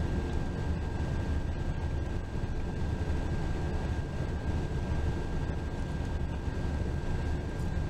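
Cabin noise of a bus driving on the interstate: a steady low rumble of engine and tyres on the road, with a faint steady high whine.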